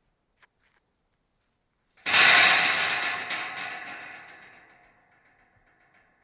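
Scrap metal pieces rattling: a faint click about half a second in, then a sudden loud clatter about two seconds in that rings and dies away over about three seconds.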